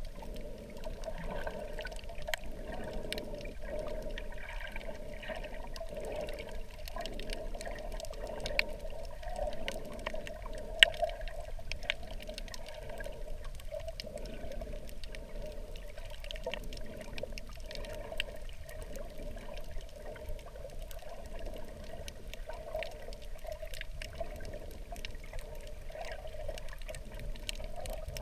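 Muffled underwater water noise picked up by a submerged camera: a steady wash with a soft pulse about once a second and scattered faint clicks.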